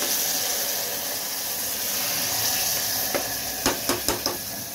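Mutton sizzling steadily as it hits hot oil and fried onions in an aluminium pressure cooker. Near the end a steel spoon knocks against the pot a few times in quick succession.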